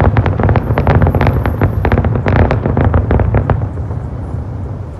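Aerial fireworks bursting in a rapid, dense volley of crackling bangs over a low rumble. The bangs die away about three and a half seconds in.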